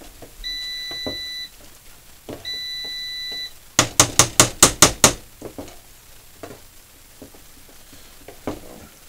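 Air fryer timer beeping its end-of-cycle signal: two long, high, steady beeps about two seconds apart. About four seconds in comes a quick run of about eight sharp clicks, louder than the beeps, then a few faint clicks.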